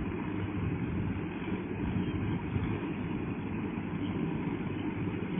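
Tracked rotary-tiller tractor's engine running steadily under load as it churns a flooded rice paddy, heard at a distance as an even low rumble.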